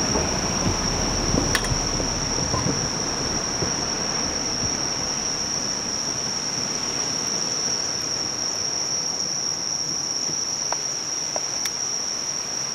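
Night insect chorus, crickets chirring as one steady high-pitched trill, with a couple of faint clicks.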